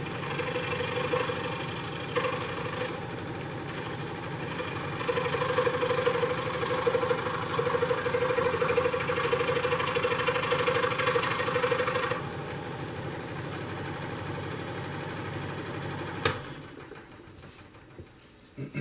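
A 16-inch scroll saw running steadily and cutting balsa wood, louder while the blade is in the cut from about five to twelve seconds in. A click about sixteen seconds in, then the saw runs down and stops.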